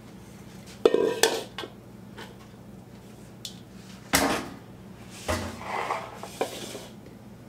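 Kitchenware clattering as a large mixing bowl is fetched, then a thump as it is set down on a wooden butcher-block island a little after four seconds in. A spoon clinks and scrapes in a bowl of noodle mixture near the end.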